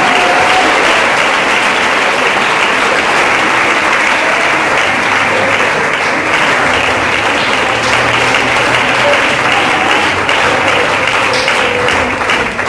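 Congregation applauding steadily, with sustained clapping throughout.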